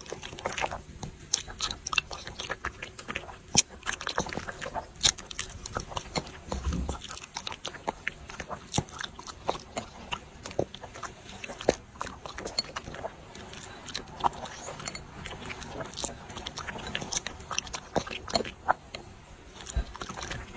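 Dogs eating rice, chewing with an irregular run of small clicks, several a second.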